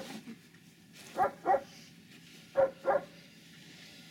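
A dog barking: four short barks in two quick pairs, a little over a second in and again near three seconds.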